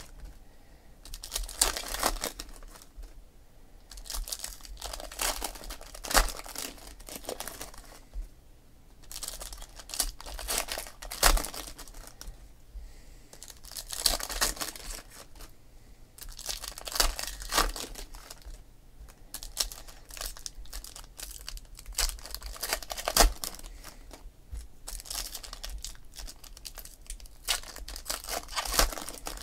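Foil wrappers of Panini Optic football card packs being torn open and crinkled by hand, in repeated bursts of crackling a few seconds apart.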